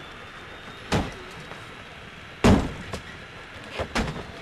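A series of heavy thuds like slams, four or five of them about a second apart, the loudest about halfway through, two close together near the end.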